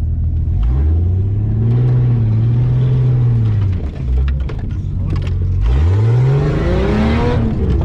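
An off-road 4x4's engine revving up and held at high revs, then dropping back, twice, under a rushing hiss as it drives in the dunes.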